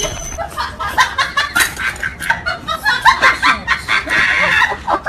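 People laughing in short, rapid giggles and snickers.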